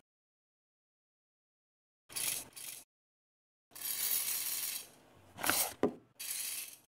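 Metal clicking and rattling of a hand-crank rotary eggbeater, its gear wheel and beaters, in short separate bursts: two quick ones about two seconds in, a longer rattle around four seconds, then two sharp clicks and a last short burst near the end.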